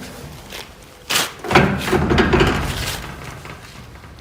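Metal knocks on a sliding gate's steel gear rack as it is set back in place: a sharp knock about a second in, then a louder clang that rings and fades over about a second and a half.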